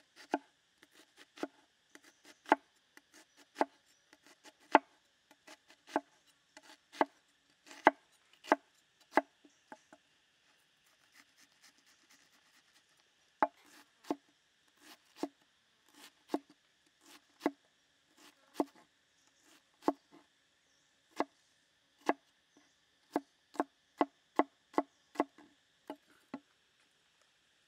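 Cleaver chopping an onion on a wooden cutting board: separate knocks about one or two a second, pausing for a few seconds midway and then going on. A steady high insect buzz runs behind it.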